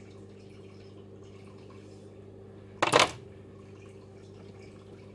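Small-scale handling of pliers and wooden model-kit parts: faint ticks, then one short sharp clatter about three seconds in, the loudest thing here, over a steady low hum.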